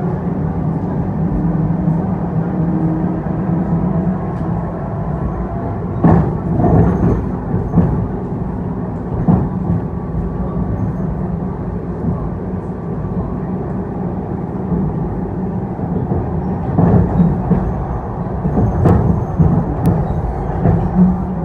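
ED4M electric multiple unit running along the line, heard from aboard: a steady rumble of wheels on rail. Clusters of wheel knocks over rail joints come about six seconds in and again near the end.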